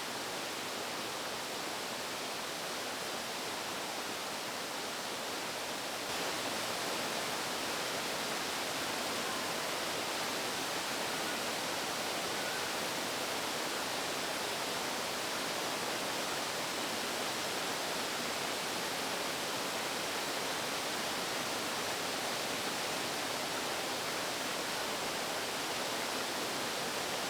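Steady rush of falling water from a waterfall, a little louder after about six seconds.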